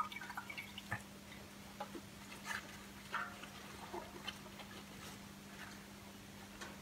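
A pre-moistened cloth being handled and lowered into a pot of dye: faint drips and soft wet handling noises, scattered over the first few seconds, over a steady low hum.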